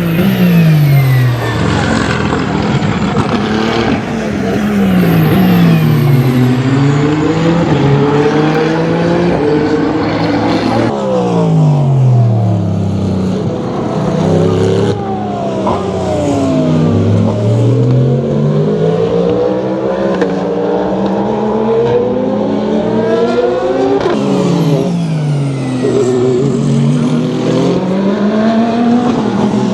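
Endurance racing cars passing one after another at speed, their engine notes repeatedly dropping and then climbing again in pitch as each car goes by and accelerates.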